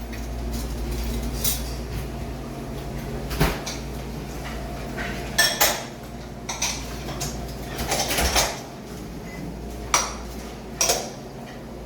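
Dishes and cutlery clinking and clattering now and then, about seven separate knocks, over a steady low hum of ambient background noise.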